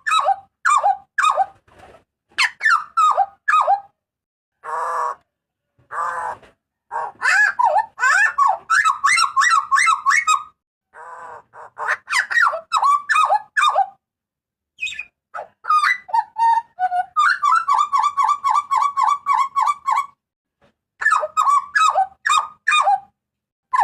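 Jagal papua, a New Guinea butcherbird, giving loud calls in quick runs of short, falling notes. A few harsh, rasping calls come between them, and near the middle there is a fast, even string of repeated notes.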